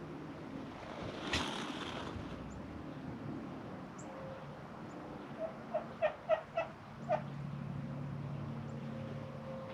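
Bourbon Red turkey tom gobbling: a quick run of about six loud calls a little past the middle, after a brief rustle about a second in.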